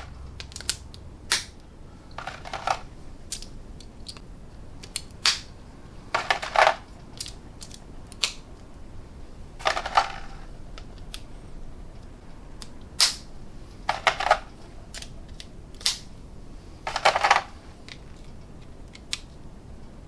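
Steel 1/4-inch drive sockets being pushed one by one onto the tight clips of a Husky socket clip rail: irregular clicks and clinks, with a short metallic ring every few seconds as a socket knocks against metal.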